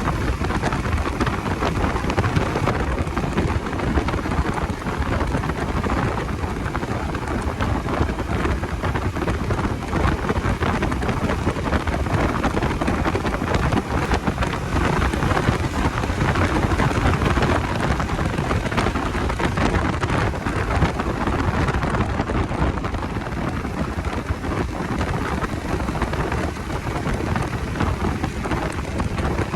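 Steady rush of wind and road noise on the camera microphone of a Bajaj Dominar 250 motorcycle under way, its engine running beneath.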